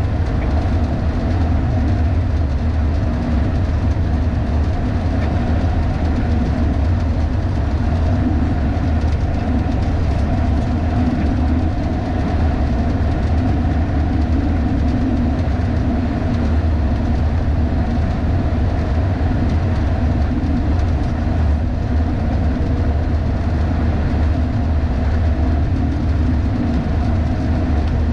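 Steady low rumble of a MAN LE280B 4x4 truck travelling along the motorway, picked up by a GoPro on a pole above the cab roof: engine, tyre and wind noise blended into one unbroken drone.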